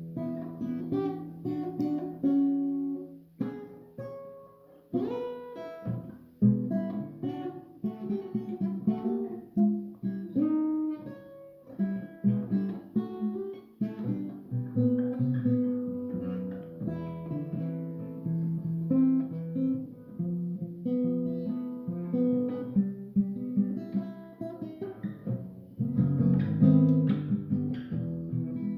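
A guitar played solo, with picked single notes mixed with strummed chords and no singing.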